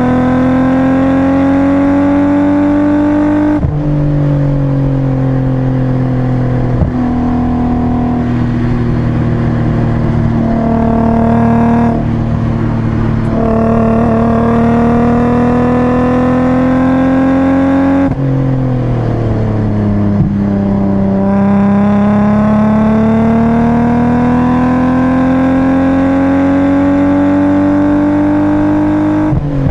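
BMW 328i's straight-six engine under hard acceleration on a track lap, heard from inside the cabin: the engine note climbs in pitch, falls sharply about three times for lifts and gear changes, and climbs again through the final stretch.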